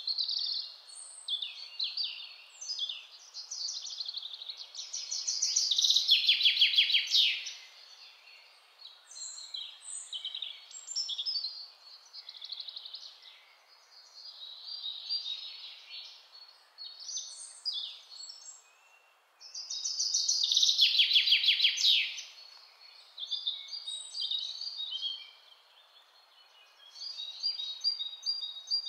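Birdsong: songbirds chirping and calling, with two loud, fast trills, one a few seconds in and another about two-thirds of the way through.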